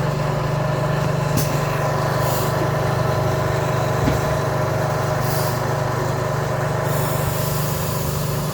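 A vehicle running with a steady low hum, with short hissing sounds about one and a half, two and a half and five and a half seconds in, and a steady hiss from about seven seconds in.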